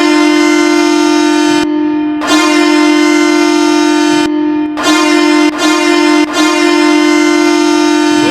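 Ottawa Senators' arena goal horn blasting one steady, loud tone. It sounds in three long blasts, about two seconds, then two seconds, then a longer run broken twice by brief dips.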